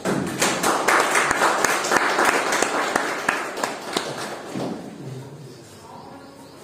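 Audience applauding, a dense patter of many hands clapping that thins and fades out about four to five seconds in.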